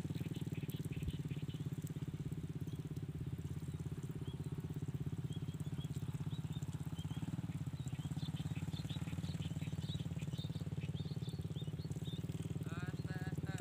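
A small engine running steadily with a fast, even pulse, with birds chirping high above it.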